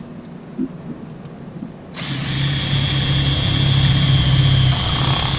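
Cordless drill starting about two seconds in and drilling a hole through thin sheet metal, a steady motor whine held until the end. Before it, a few light handling knocks as the drill is picked up and positioned.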